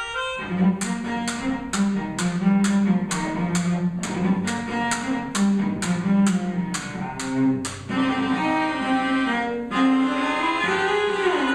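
Cello and melodica duo playing a train-imitating piece: the cello bows a low rhythmic bass line under a sharp percussive click about three times a second, like wheels on rail joints. About eight seconds in the clicks stop and sustained higher notes take over, with a gliding note near the end.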